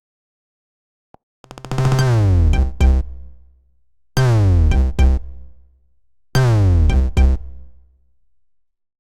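A built-in Android 10 (LineageOS 17.1) electronic tone looping: a short synth and drum-machine phrase with a falling sweep over deep bass and two sharp hits at its end. It plays three times, about two seconds apart, after a second and a half of silence.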